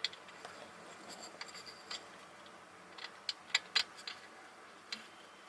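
Faint scratching and a scatter of small sharp clicks as hands fit a loose rubber foot under a screw and work the screw, with a quick run of louder clicks about three and a half seconds in.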